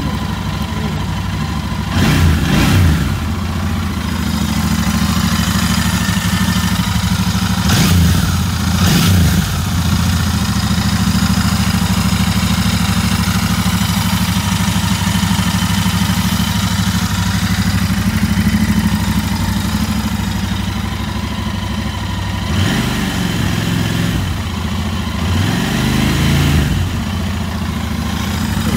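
Royal Enfield Continental GT 650's 648 cc parallel-twin engine idling in neutral through its stock exhaust, with several short throttle blips that briefly raise the revs.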